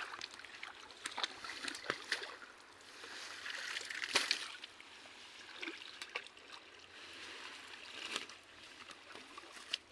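Shallow pond water splashing and trickling, with scattered sharp splashes, the loudest about four seconds in.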